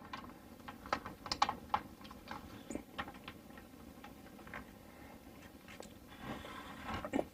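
Small objects being handled at close range: scattered, irregular light clicks and taps.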